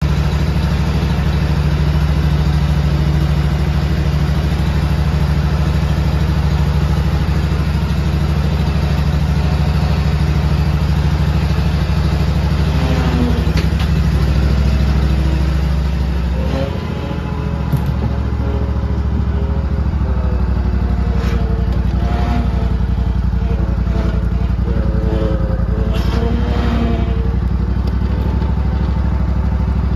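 Exmark zero-turn mower's engine running steadily, with a brief dip in level a little past halfway.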